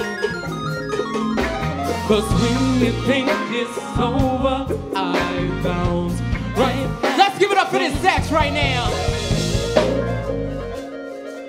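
Live soul band playing, with a lead singer over bass, drums and keyboards and a backing singer. The band eases down near the end.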